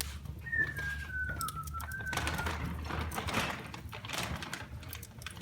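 Wood fire in a fireplace crackling, with scattered sharp pops. About half a second in, a thin whistling tone starts and falls slowly in pitch for about two seconds.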